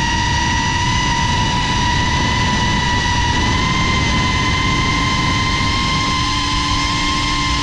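GEPRC Cinelog 35 cinewhoop's brushless motors and ducted props whining steadily in flight, the pitch creeping slowly upward, with a lower hum joining near the end. Wind rumble on the onboard GoPro microphone runs underneath.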